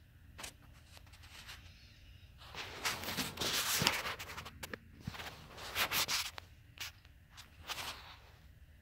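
Rustling and rubbing noises from handling the camera, with scattered short scrapes and clicks; the loudest stretch comes about three to four seconds in.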